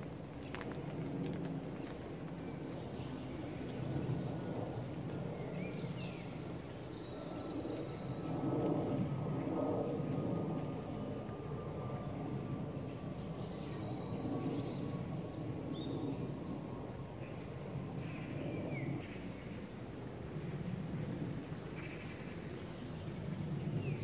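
Outdoor ambience: scattered short, high chirps of small birds over a steady low background noise.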